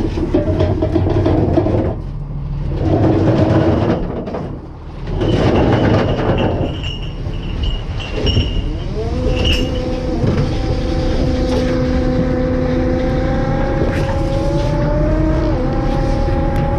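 A crab fishing boat's engine and deck machinery running with a heavy rumble, surging louder a few times early on; about eight seconds in the engine note rises and then holds at a steady higher pitch.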